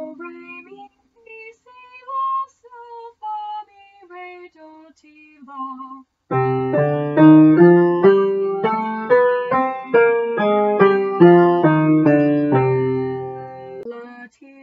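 A woman sings a short melody unaccompanied, then from about six seconds in an upright piano plays a chordal passage until shortly before the end.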